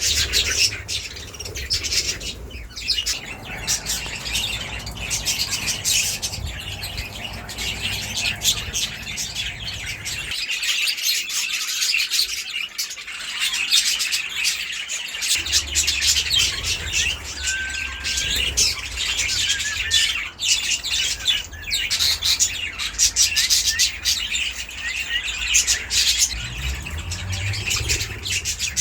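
A flock of budgerigars chattering and chirping continuously, many birds at once. A low steady hum runs underneath and stops for a few seconds in the middle.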